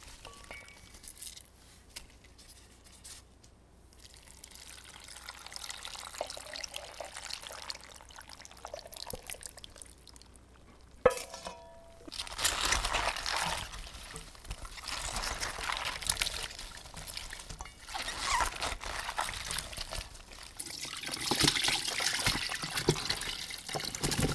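Cucumber and cabbage pieces being tossed by gloved hands with wet kimchi seasoning in a stainless steel bowl: irregular wet squishing and rustling that grows louder from about halfway. A sharp knock with a brief metallic ring comes a little before halfway.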